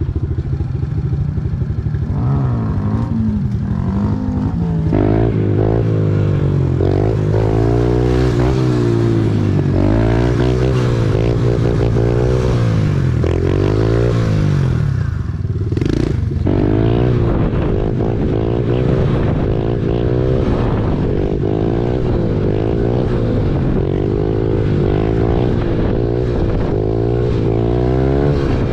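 Small dirt bike engine revving up and down over and over, with the pitch rising and falling about once a second, as when riding stunts or wheelies.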